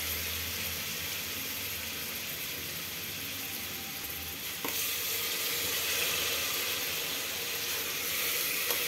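Browned onions and spices sizzling steadily in hot oil in an aluminium pressure cooker. There is a light knock about halfway through, after which the sizzle gets a little louder.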